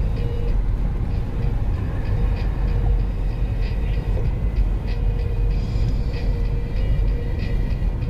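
Steady low road and engine rumble of a car travelling at freeway speed, with a faint steady hum and light scattered ticks.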